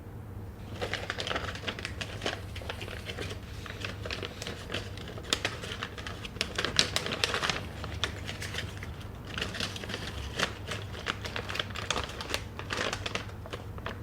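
Plastic snack packaging crinkling and crackling as it is handled and torn open, in dense irregular bursts with a brief lull a little past the middle.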